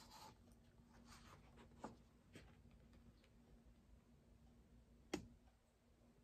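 Near silence: quiet room tone with a faint low hum and a few soft clicks, the sharpest about five seconds in, from the pages of a hardcover picture book being turned and handled.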